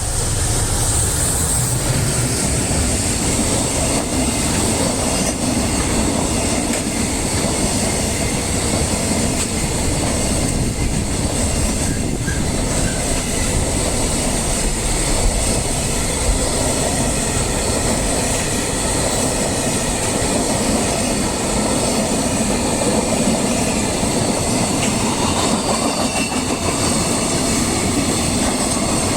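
Long JR Freight container train, hauled by an EF210 electric locomotive, rolling steadily past at close range. The wheels give a clickety-clack over the rail joints, with a steady high-pitched ring above the rumble.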